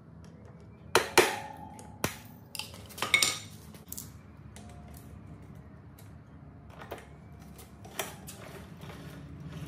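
Sharp metal clinks and taps as a screwdriver works the master link off a Sur-Ron electric dirt bike's drive chain, one clink ringing briefly about a second in. A few lighter clicks follow near the end as the freed chain is pulled off the rear sprocket.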